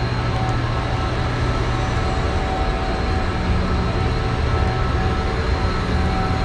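Electroacoustic film score: a dense, steady, train-like noise, heaviest in the low range, with several thin held tones layered over it.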